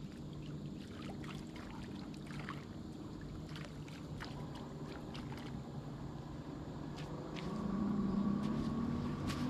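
Steady hum of a distant engine that rises in pitch and grows louder about three-quarters of the way through, with small splashes and clicks of a camp bowl being rinsed in lake water at the shoreline.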